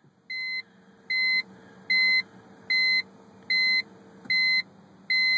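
BMW E46 instrument-cluster warning chime beeping seven times, a short clear beep about every 0.8 s, with the ignition on and the door-open warning lit. A faint steady hum runs under the first four seconds and then stops.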